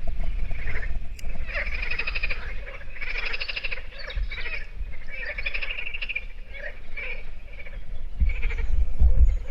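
Frogs croaking in the reeds: a run of repeated rattling calls, each lasting about half a second to a second. Low wind rumble on the microphone rises near the end.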